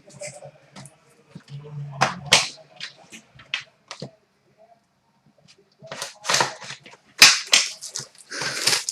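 Foil card packs and the cardboard box being torn open and handled, a run of sharp crinkling and ripping noises. There is a pause about halfway through, and the noise is busiest near the end.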